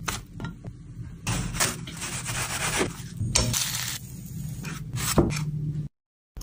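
Egg-dipped bread frying in a pan, mixed with scraping, knocks and handling of cookware. The sound cuts out suddenly shortly before the end.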